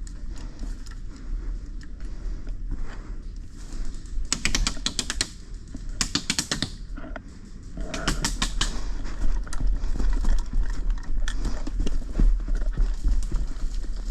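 Airsoft guns firing in short full-auto bursts, heard as rapid rattling clicks: three bursts about 4, 6 and 8 seconds in. Scattered rustling and clicking of movement follows in the second half, over a steady low rumble.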